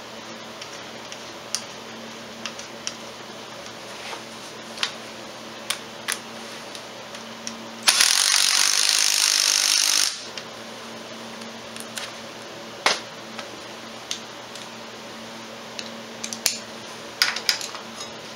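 Sharp metal clicks and clinks of hardware being handled at an ATV's front wheel hub. Near the middle, a cordless power tool runs in one loud burst of about two seconds, then stops abruptly.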